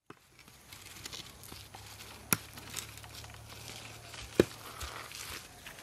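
Faint crackling and rustling, with two sharp clicks about two seconds apart over a low steady hum that stops shortly after the second click.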